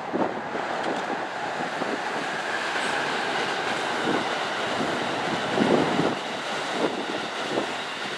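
Amtrak passenger cars rolling past on the electrified main line, a steady rumble of wheels on rail, with gusts of wind thumping on the microphone now and then.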